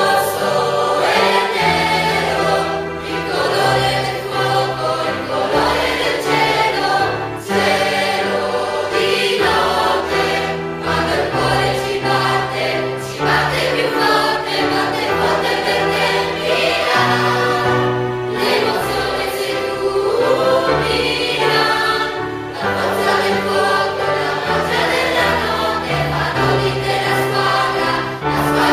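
Mixed choir of men's and women's voices singing a football supporters' chant together, accompanied by an electronic keyboard with sustained bass notes that change every second or two.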